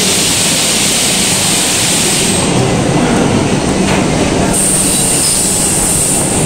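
Vande Bharat Express electric multiple unit rolling along the platform, a steady loud rumble of wheels on rails with a high, thin whine over it.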